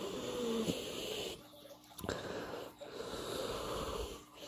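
A person breathing close to the microphone: two long, noisy breaths with a short pause between them.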